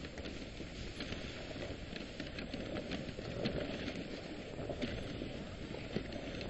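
Dog sled running along a snowy trail behind a trotting team: a steady scraping rush of the runners over snow, with scattered light ticks.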